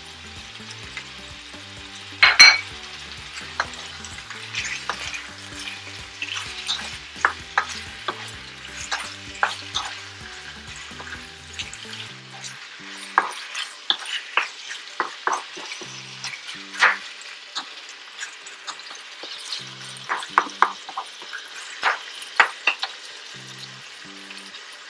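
Cubes of beef and onion sizzling in hot oil in a nonstick wok, with a wooden spoon scraping and knocking against the pan as they are stirred. The sharpest knock comes about two seconds in.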